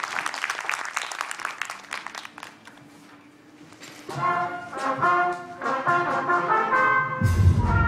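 Applause dying away, then after a short hush a school wind band starts playing, brass chords sounding in short rhythmic hits. A deep low sound joins near the end.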